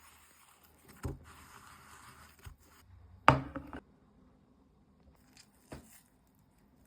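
Kitchen utensils knocking and scraping: three knocks, the loudest about three seconds in, over a faint hiss that stops after about three seconds.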